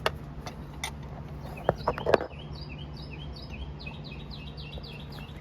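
A small bird chirping a quick run of short, high, repeated notes during the second half. Before it come a few sharp clinks of wrench and nuts being handled, the loudest about two seconds in, over a steady low hum.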